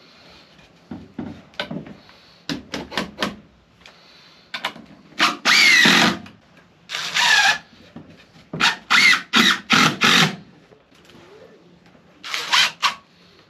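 Cordless impact driver driving screws into pressure-treated lumber in a string of short bursts, some about a second long, the motor whining up in pitch as each screw goes in.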